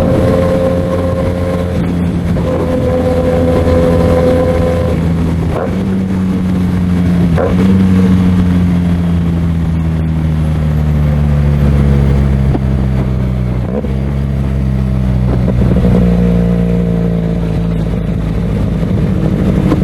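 QJMotor SRK 400 parallel-twin motorcycle engine and exhaust running under way at expressway speed. The pitch jumps up or down at about four gear changes, with rev-matched blips on the downshifts.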